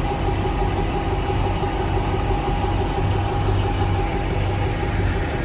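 Pickup truck engine idling with a steady, unchanging hum.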